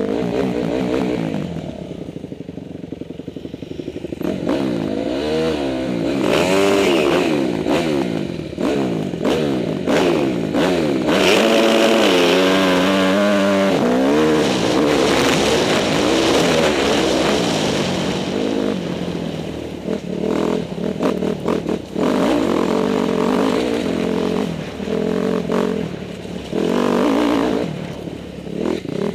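Off-road motorcycle engine revving up and down over and over as it is ridden along a rough trail, its pitch rising and falling with the throttle. Knocks and rattles come from the ride over bumps.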